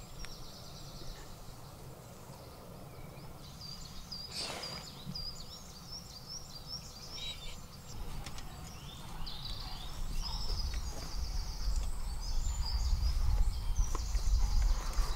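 Songbirds singing, with repeated short high chirps and trills throughout. In the second half a low rumble builds up underneath and becomes the loudest sound by the end.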